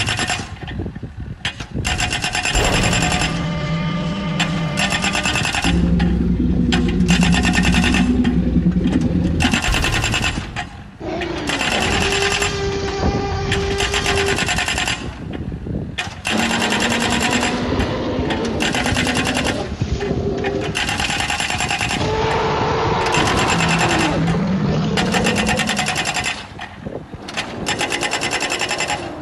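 Excavator-mounted ground compactor pounding in a fast, steady rattle, broken into many short segments by edits, with pitched sounds in between.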